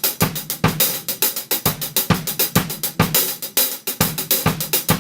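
Drum kit playing a steady beat: kick and snare hits about twice a second under fast hi-hat and cymbal strokes.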